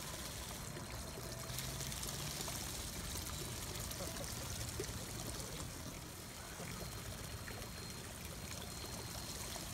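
Steady outdoor rushing noise with no distinct event.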